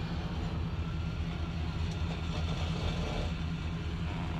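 Electric motor of a power-folding rear bench seat running with a steady low hum as the bench reclines flat into a bed.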